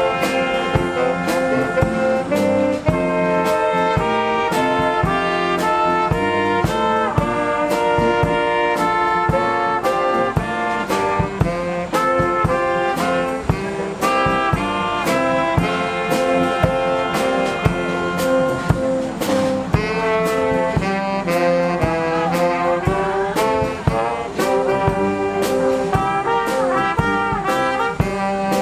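Brass band music: trombones, trumpets and saxophone playing a tune together over a steady beat.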